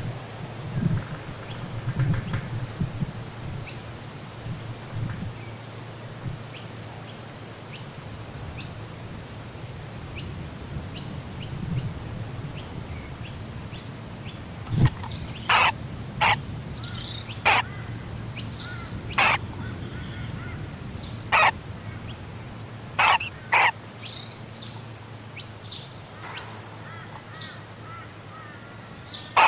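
A bird giving short, harsh calls, about eight of them spaced a second or two apart in the second half.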